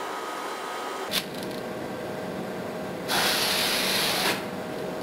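A single burst of compressed air from a can of canned air, hissing for just over a second about three seconds in, blown into a dusty air conditioner to clear it. A steady low hum runs underneath, with a faint click about a second in.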